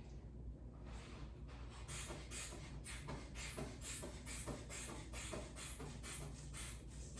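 Rubber bulb of a manual blood pressure cuff being squeezed to inflate the arm cuff: short puffs of air, about two a second, fainter at first and then steady.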